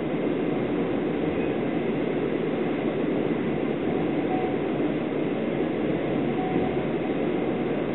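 Steady rumble of a 25Z passenger coach running at speed, heard from inside the carriage: wheels and running gear on the rails, an even noise with no breaks.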